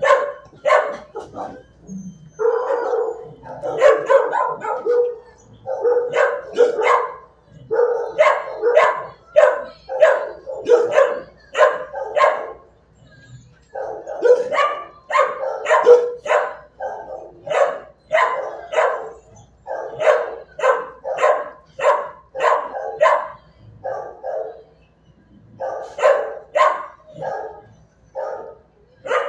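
Dog barking repeatedly, about two barks a second, in long runs broken by a few short pauses.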